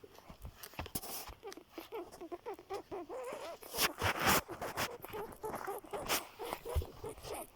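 Footsteps and rustling of a person walking up a hillside with a phone in hand: a run of small clicks and knocks, with a louder rustle about four seconds in.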